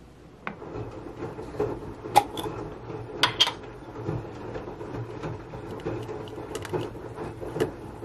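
Water heating toward a boil in a stainless saucepan on an induction hob: a steady low rumble with bubbling crackle and a few sharp clicks from the pot.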